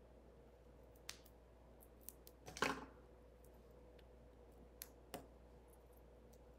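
Mostly quiet, with a few faint clicks and one louder short sound about two and a half seconds in: scissors cutting foam dimensionals in half.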